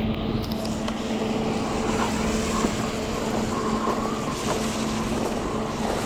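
Road traffic at an intersection: a steady rush of vehicles on the road, with a constant low hum under it.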